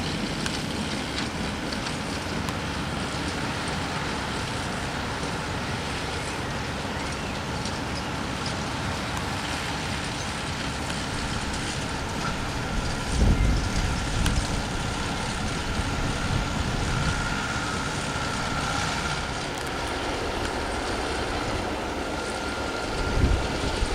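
Steady motor vehicle and road noise, with two low thumps about halfway through and near the end.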